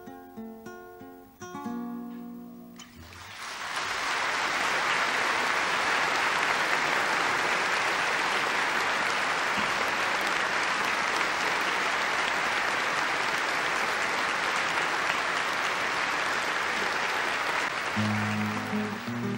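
Last notes of an acoustic guitar, then an audience applauding steadily for about fifteen seconds. Near the end the applause dies down and the guitar starts playing again.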